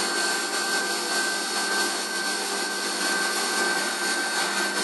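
CNC milling machine cutting a small step in the plate with an end mill, making steady passes. The sound is an even hiss with a thin steady whine over it.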